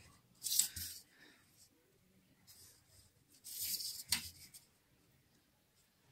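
Pencil strokes scratching across drawing paper along a plastic ruler: two short strokes, about half a second in and about three and a half seconds in, with a light click near the end of the second.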